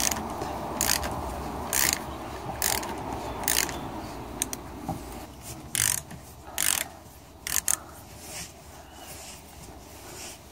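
Ratchet wrench loosening a bicycle's 15 mm axle nut, its pawl clicking in short bursts about once a second on each back-stroke, getting quieter toward the end.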